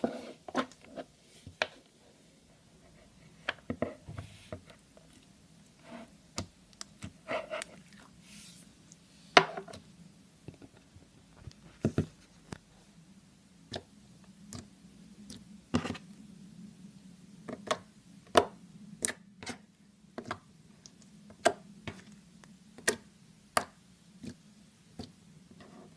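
Slime being handled, giving irregular sharp clicks and pops, roughly one a second, over a faint steady hum.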